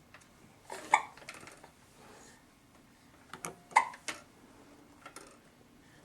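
Hiccups: two sharp, short catches of the breath, about a second in and again near four seconds, with a few fainter clicks in between.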